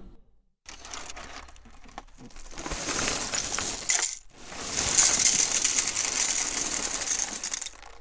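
Small hard objects clinking and clattering in a dense stream, as in a kitchen sound effect. It builds up, breaks off briefly about four seconds in, then returns louder and stops just before the end.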